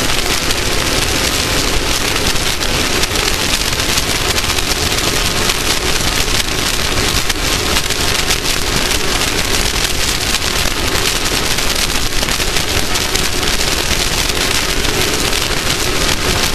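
Off-road race vehicle running at speed: a loud, steady rushing noise with dense fine crackling throughout and no clear engine note standing out.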